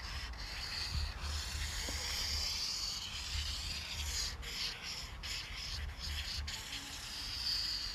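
A continuous scratchy rubbing noise with brief breaks, over an uneven low rumble.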